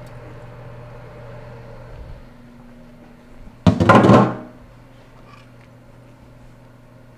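A single loud knock and clatter of kitchenware lasting under a second, about three and a half seconds in, over a steady low hum.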